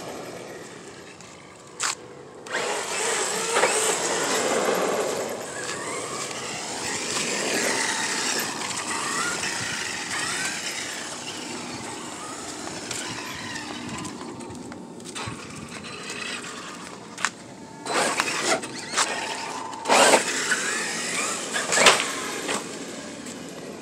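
Traxxas X-Maxx RC monster truck on a 6S battery driving and jumping: its electric motor whines up and down as it speeds up and slows, with tyre noise on the pavement and several sharp bangs in the second half as it lands off jumps.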